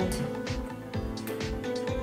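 Background music with a steady beat, about two beats a second, under held chord tones.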